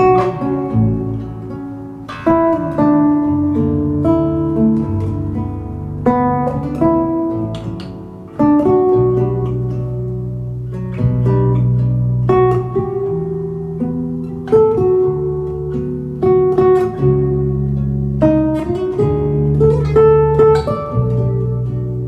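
Nylon-string classical guitar played fingerstyle: plucked chords and melody notes struck every second or two, each left ringing over sustained bass notes.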